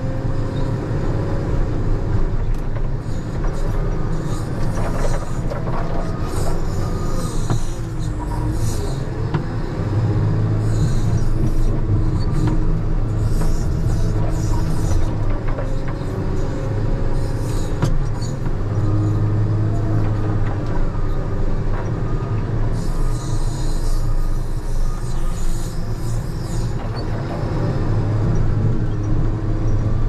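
JCB loader's diesel engine running under load as the bucket pushes snow, with a wavering hydraulic whine and several bursts of high-pitched squealing.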